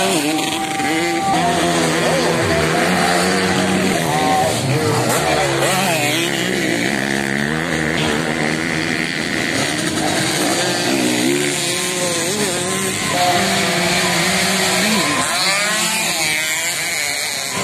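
Dirt-bike engines revving and backing off as the bikes ride over the jumps of a grasstrack course. Their pitch rises and falls again and again, with more than one engine heard at once.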